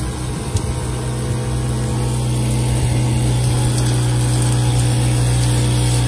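Propane instant water heater running, fed by its water pump: a steady low hum over a rushing noise that slowly gets louder as the heater comes up to temperature.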